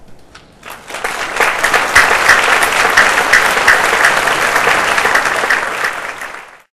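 Audience applauding: a few scattered claps, swelling within about a second into full, loud applause that cuts off abruptly near the end.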